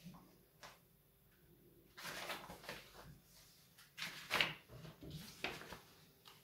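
Parts and packaging being handled: scattered rustles and light knocks, loudest about two seconds in and again around four seconds.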